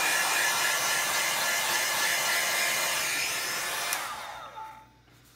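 Handheld hot-air blower running steadily over wet alcohol ink on paper, then switched off with a click about four seconds in, its fan winding down over the next second.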